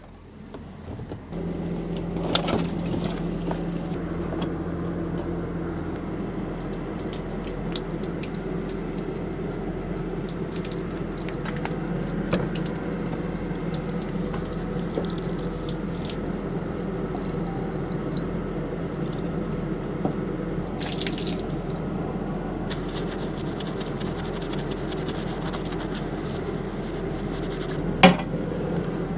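Water running in a thin stream from the tap of a plastic water jerrycan and splashing below, over a steady low hum. A sharp knock near the end.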